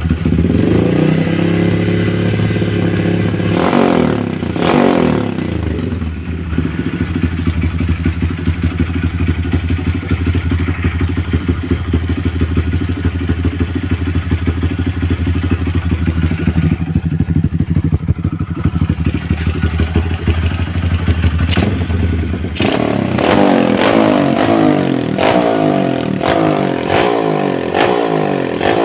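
Motorcycle engine and exhaust run for a sound check. The throttle is blipped about four seconds in, the engine settles into a steady idle, and near the end it is revved repeatedly.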